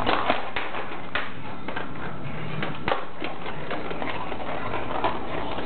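A ball rolling and clattering on a hard surface, with irregular light clicks and taps over a steady hiss.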